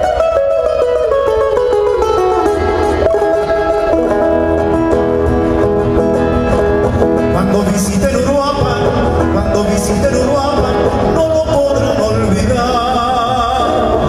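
Solo nylon-string classical guitar, fingerpicked melody and chords, joined a little past halfway by a man's singing voice over the guitar.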